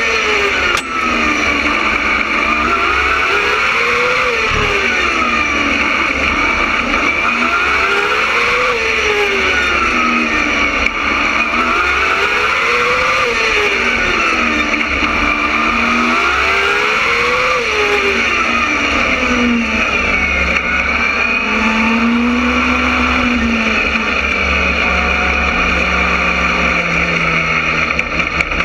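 Open-wheel race car engine heard onboard, revving up and falling back in a repeating cycle about every four and a half seconds as the car laps a short oval. From about twenty seconds in the revs drop and hold low and steady, sinking slowly toward the end as the car slows.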